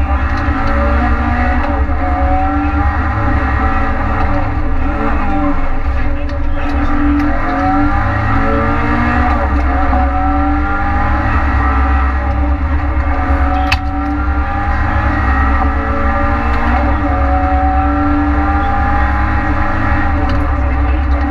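Renault Clio rally car's engine heard from inside the cabin at full stage pace, revving up and dropping back again and again as the driver shifts gears and lifts for corners. A single sharp knock is heard about two-thirds of the way through.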